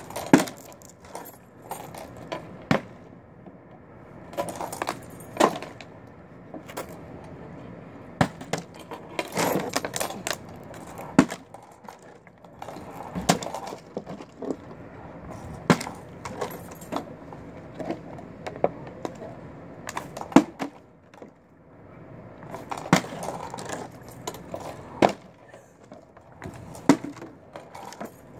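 Plastic water bottle repeatedly flipped and landing on a hard surface: a string of sharp clacks and clatters, irregularly spaced a second or a few apart.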